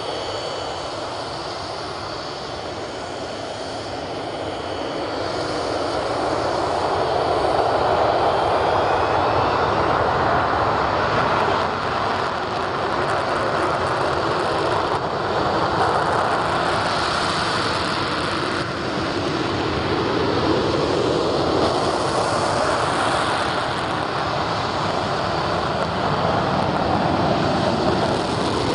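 A pair of Douglas A-4 Skyhawk turbojet engines running at low power as the jets taxi onto the runway: a steady jet rush with a thin high whine in the first few seconds, growing louder about five seconds in and then holding steady.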